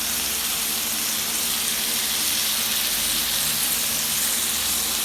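Samgyup meat sizzling steadily on an electric griller pan.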